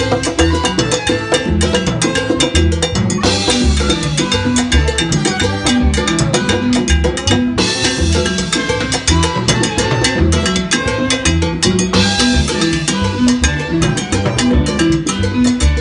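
Live salsa band playing: congas and timbales drive a steady, dense rhythm over a repeating upright bass line.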